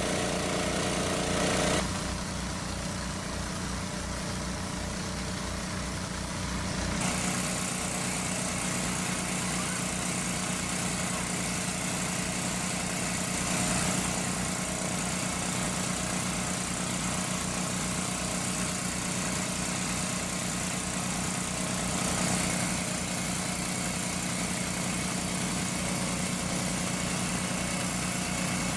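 A small engine running steadily at idle-like speed, its sound shifting about two seconds in and again about seven seconds in.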